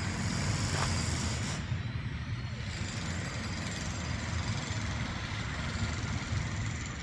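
Wind rumbling steadily on the microphone, with a brief high hiss in the first second and a half.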